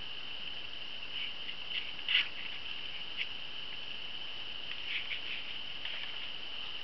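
Paper instruction sheet being handled and its pages flipped: a few short, soft rustles and taps, the loudest about two seconds in and a cluster near five seconds, over a steady high-pitched background whine.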